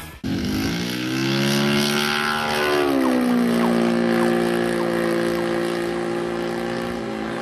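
Radio-controlled aerobatic model plane's YS 140 four-stroke glow engine and propeller running in flight. The engine note rises, then drops about three seconds in and holds steady.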